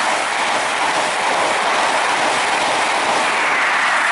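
InterCity 125 High Speed Train passing close by at speed: a loud, steady rush of wheels on rail and air from its coaches.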